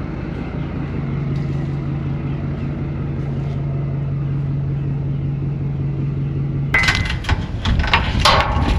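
An engine running at a steady speed, then, about seven seconds in, a run of sharp clanks and knocks takes over.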